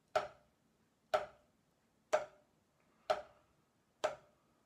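Five sharp, evenly spaced ticks, about one a second, keeping a slow steady beat.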